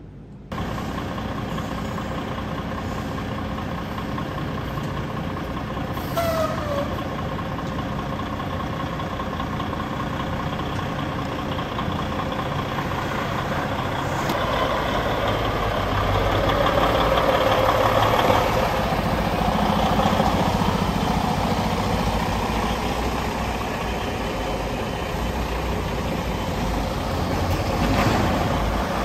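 A steady low mechanical rumble with a hum, like a large engine idling, growing somewhat louder in the middle, with a short falling squeal about six seconds in.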